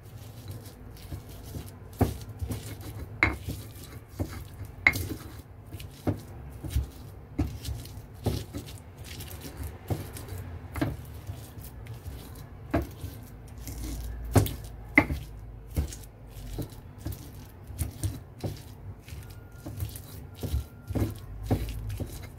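Stone pestle pounding and grinding roasted chilies, shallots and garlic in a stone mortar (Indonesian ulekan and cobek): irregular knocks of stone on stone, about one or two a second, over a steady low hum.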